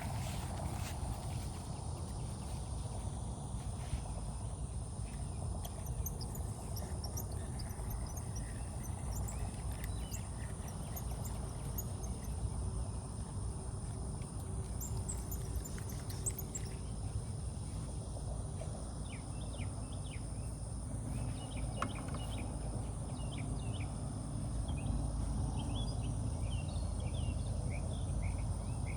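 Riverbank ambience: insects giving a steady high buzz, with many short bird chirps scattered through and coming thicker towards the end, over a low steady rumble.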